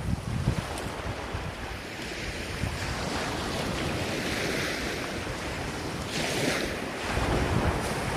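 Ocean surf: waves washing and breaking in a steady rush, with a hissing swell of a wave about six seconds in. Wind buffets the microphone in low rumbling gusts at the start and again near the end.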